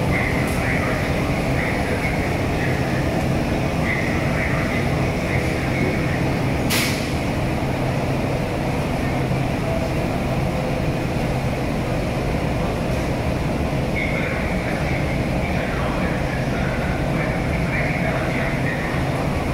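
FS E646 electric locomotive standing at the platform with its onboard equipment running as a steady mechanical hum. There is a single sharp click about seven seconds in.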